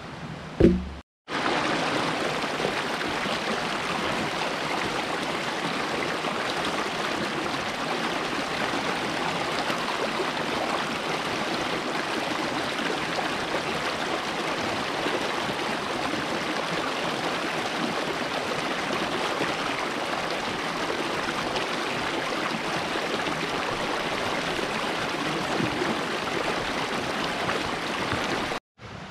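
A brief thump near the start, then a small mountain stream rushing steadily over rocks close by.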